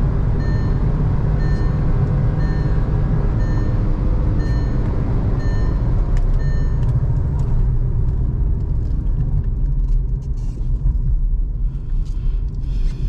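Cabin road and wind noise in a Skoda Kushaq at about 130 km/h, a steady low rumble, with the dashboard speed-warning chime beeping about once a second, the alert for driving above 120 km/h. The beeping stops about seven seconds in as the car slows, and the rumble carries on with uneven dips.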